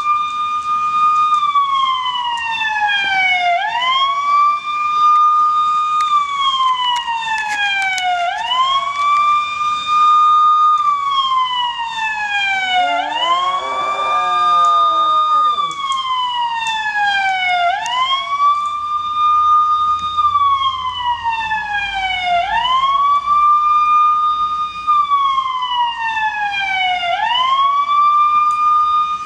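Siren sound effect wailing over and over: each cycle rises quickly, holds, then falls slowly, repeating about every five seconds. About 13 seconds in, a miniature schnauzer howls along with it for about three seconds, a wavering call below the siren's pitch.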